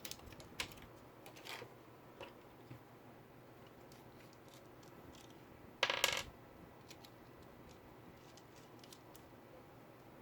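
Scattered light clicks of laptop parts and tools being handled, then a short metallic clatter about six seconds in, like a small metal object dropped or set down on a hard surface.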